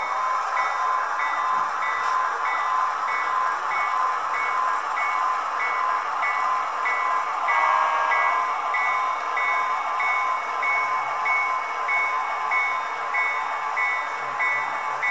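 HO-scale model train running slowly: a diesel switcher pulling coal hoppers along the track, a steady whirring of motor and wheels on rail with a regular high tick about twice a second.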